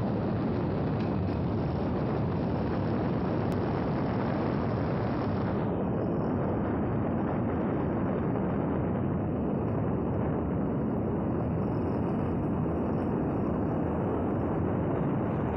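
Wind buffeting the microphone of a camera travelling along a road at speed: a steady, dense rumble.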